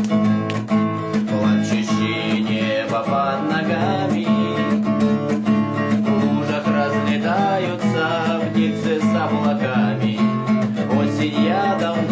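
Acoustic guitar strummed in a steady, even rhythm, playing chords without singing.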